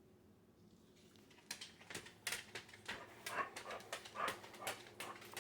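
Dog vocalising in a quick run of short whines, several a second, starting about a second and a half in: the dog's 'talking'.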